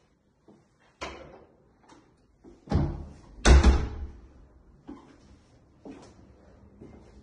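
Wooden interior door being opened and shut, with a run of knocks and thuds. The loudest is a heavy thump about three and a half seconds in.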